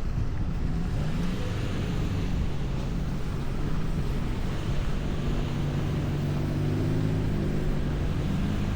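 Street traffic: motor vehicle engines running close by, a steady low hum that shifts slightly in pitch, under a continuous hiss.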